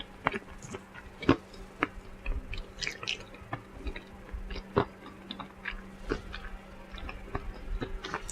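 Close-up chewing of fried chicken: irregular sharp crunches and mouth clicks a second or so apart.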